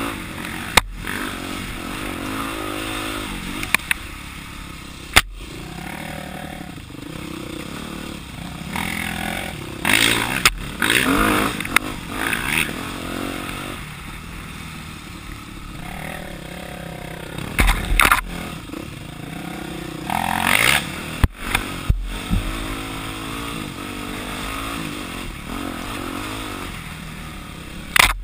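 Yamaha dirt bike's engine running on and off the throttle, its pitch rising and falling as it works along a rutted trail. Several sharp knocks and some clatter come from the bike over the rough ground.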